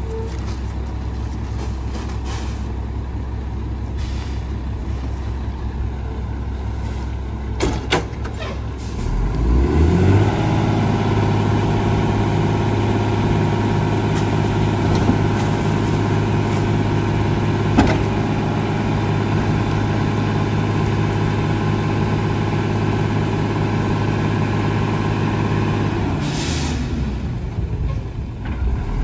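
Rear-loading garbage truck's diesel engine idling, then about nine seconds in revving up to a steady high idle with a steady whine as the hydraulic packer compacts leaf bags in the hopper. Near the end the engine drops back to idle and a short air hiss sounds.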